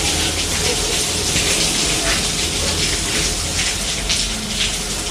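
Heavy rain falling and water splashing and running, a steady rushing noise with a low rumble underneath.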